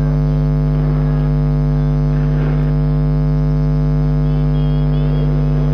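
Loud, steady electrical hum with many overtones, unchanging throughout, with a faint voice barely showing underneath.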